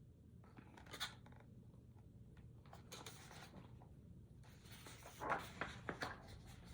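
Faint paper rustling and scraping as the pages of a hardcover picture book are handled and turned. There is a light click about a second in and a denser run of rustles about five seconds in.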